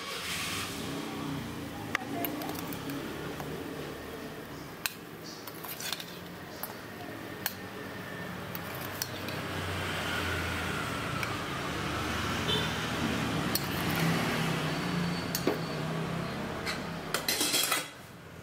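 Stainless steel bowl clinking against a steel soup pot, with scattered sharp clinks and a dense cluster of them near the end, over a steady hiss, as soaked mushrooms and their liquid are tipped into the broth.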